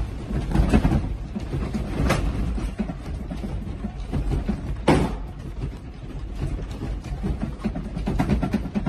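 A room shaking in a powerful earthquake: a continuous low rumble with constant rattling of the building and its contents. A few sharper knocks cut through it, the loudest about five seconds in.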